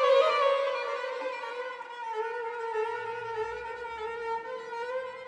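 String quartet of two violins, viola and cello playing; a violin holds a long, slightly wavering note that grows gradually quieter.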